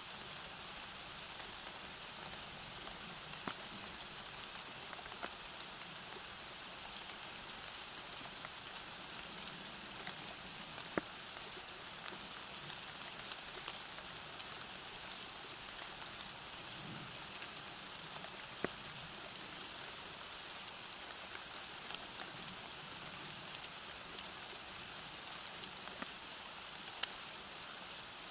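Steady rain falling: an even hiss, with a few sharper single drops ticking on a surface now and then.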